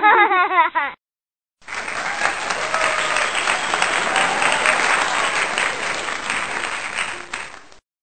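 Crowd applause lasting about six seconds and cutting off shortly before the end. Before it, in the first second, comes a brief warbling, wavering high tone.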